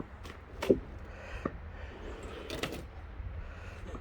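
A few sharp knocks or clunks over a low steady rumble, the loudest about three-quarters of a second in, with more around one and a half and two and a half seconds in.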